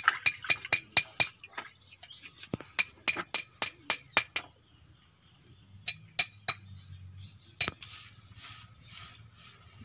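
Small hammer tapping steel against steel, seating a retaining ring in the gland (cylinder head) of a Komatsu PC200 boom cylinder. A quick run of sharp, ringing clinks, about four a second, for the first half, then a few single taps after a pause.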